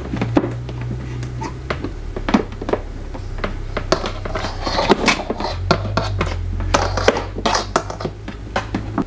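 Hands winding an appliance's power cord around stick-on plastic cord hooks: a run of small clicks, taps and rustles of cord and plastic, busier in the second half, over a low steady hum.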